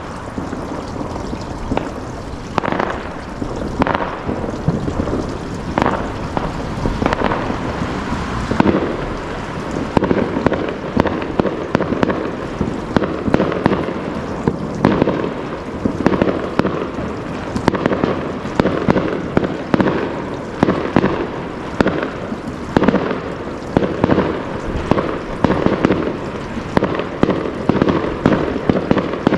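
Fireworks display: a dense, continuous barrage of bangs and crackles, several a second, with no let-up.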